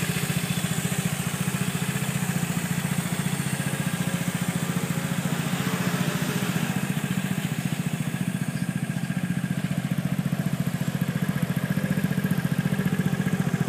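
Gilera Runner VXR 200 scooter's single-cylinder four-stroke engine idling steadily, with an even, rapid exhaust pulse.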